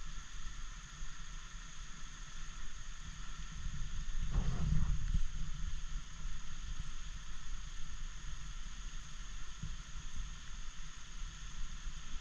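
River water running over shallow shoals, a steady rush with a low rumble underneath, and a louder low thump about four seconds in.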